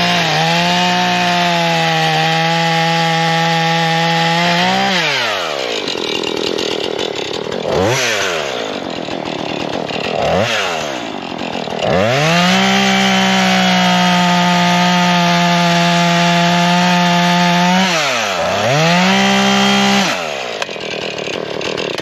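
Husqvarna 440 two-stroke chainsaw cutting into a rotten stump: held at full throttle for about five seconds, dropped to idle and revved briefly twice, then run flat out again for about six seconds before a short dip, one more burst, and a fall back to idle near the end.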